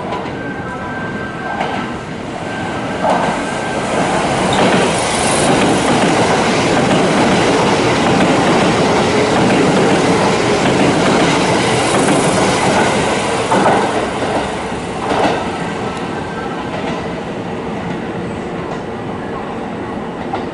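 Kintetsu limited express train passing through the station without stopping. Its running noise builds over the first few seconds, is loudest in the middle, then fades.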